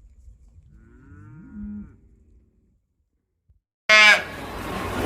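Cow mooing: a faint drawn-out call in the first two seconds, then, after a pause, a loud moo starting suddenly near the end.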